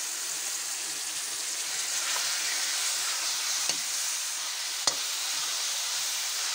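Grated bottle gourd frying in ghee in a metal kadhai: a steady sizzle, with a steel ladle stirring and knocking sharply against the pan twice in the second half.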